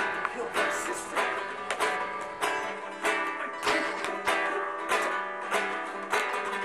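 Background music on a plucked string instrument: a steady run of picked notes, about two a second.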